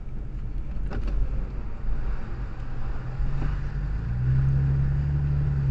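Toyota FJ Cruiser's 4.0-litre V6 and road noise while driving, a steady low rumble. The engine note rises slightly and grows louder about three to four seconds in.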